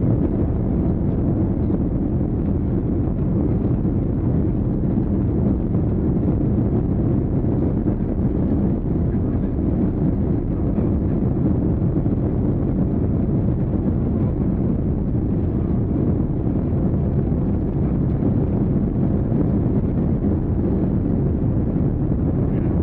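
Steady low drone of a moving vehicle's engine, with wind noise on the microphone, unchanging throughout.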